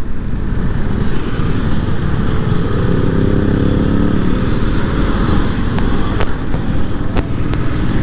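KTM motorcycle engines running steadily while riding, under a constant low rush of wind noise.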